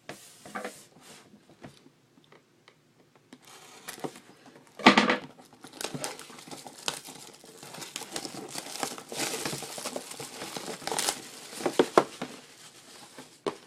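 Plastic shrink wrap being torn open and crumpled off a sealed trading-card hobby box: a sharp rip about five seconds in, then several seconds of continuous crinkling.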